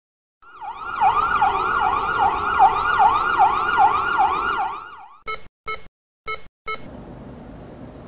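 Emergency-vehicle siren sound effect in a fast yelp, its pitch swooping up and down about two and a half times a second, which then stops. Four short beeps follow, then a faint steady hiss.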